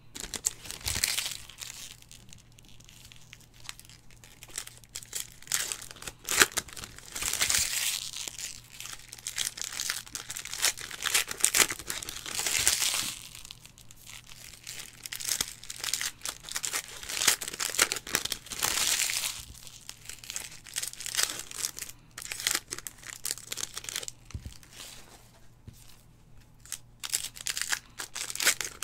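Foil wrappers of Donruss football card packs being torn open and crinkled, in bouts every few seconds, with cards handled and set onto a stack between them.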